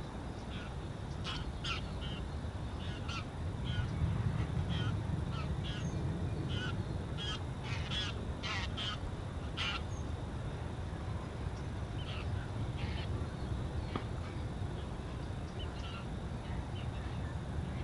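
Greylag geese honking in flight as they pass: a quick run of short calls that thins out after about ten seconds, over a steady low rumble.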